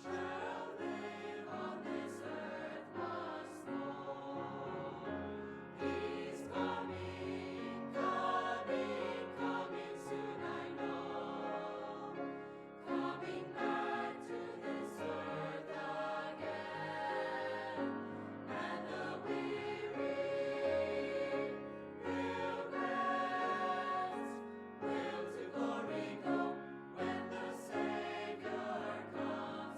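Choral music: a choir singing sustained, slow-moving harmonies over an accompaniment.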